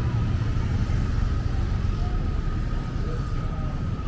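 City street traffic: a steady low noise from motor vehicles running and passing along the road.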